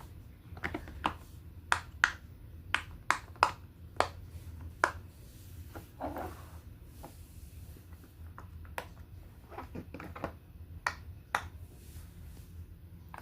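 Plastic fidget toys being clicked and popped by hand: a run of sharp, irregular pops and clicks, loudest in the first few seconds, then fainter and sparser.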